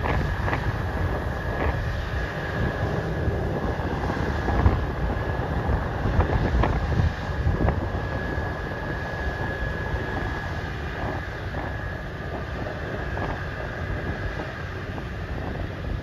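John Deere X9 combine running as it harvests, heard from across the field: a steady machine hum with a thin, steady high whine. Wind buffets the microphone throughout, with gusty rumbling and occasional pops.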